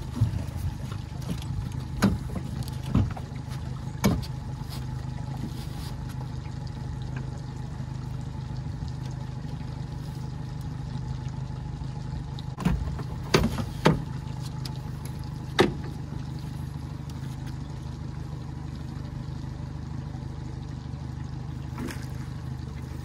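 Boat motor running steadily at idle, with a few sharp knocks and clunks of gear against the boat, a cluster of them about halfway through.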